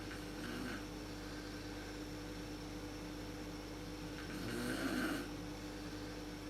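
A sleeping woman snoring: a faint snore about half a second in, then a louder one of about a second, roughly four and a half seconds in, over a steady background hum.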